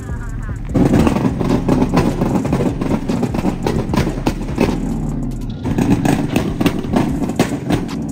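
Pickup truck engine revving loudly as it drives past, dipping briefly about five seconds in before picking up again.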